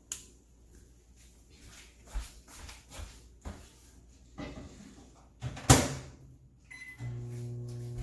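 A few faint knocks, then a microwave oven door slammed shut with a loud clack, a short keypad beep, and the microwave starting to run with a steady electrical hum as it resumes cooking.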